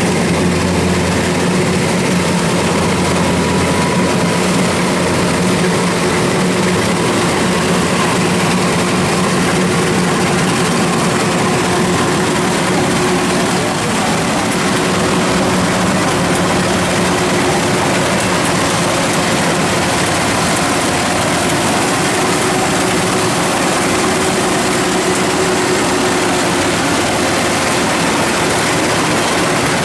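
Kubota DC70 combine harvester's diesel engine running steadily under load, a loud, even hum with its machinery noise.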